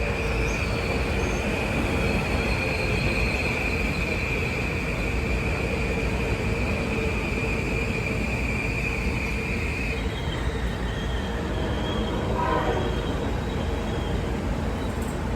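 A train running past with a steady rumble and a high, steady wheel squeal that holds for about ten seconds, then gives way to fainter, broken squeals.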